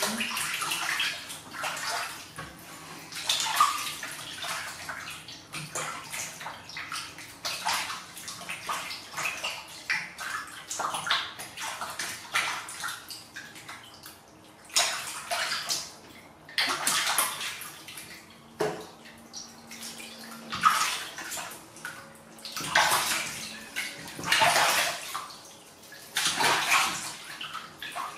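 Water splashing and sloshing in a plastic basin as a kitten is washed by hand, in irregular bursts of a second or so with quieter stretches between. The water stands in the basin, with no tap running.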